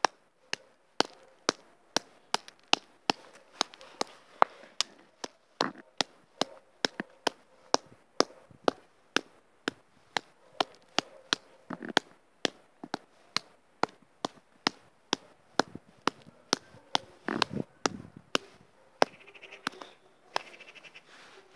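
Wooden mallet striking sticks of chalk on hard ground again and again, about two sharp knocks a second, crushing the chalk into pieces.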